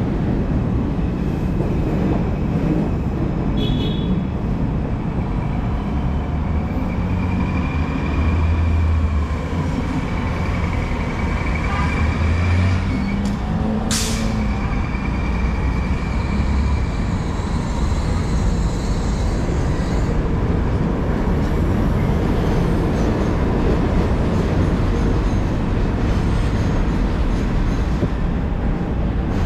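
Steady city riding noise heard from an electric bike's handlebars: low traffic rumble and road noise throughout, with one sharp click about fourteen seconds in.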